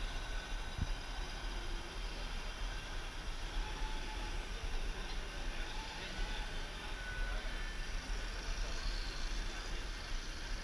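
Steady background noise with a strong low rumble and a few faint, brief tones and ticks, with no single clear event.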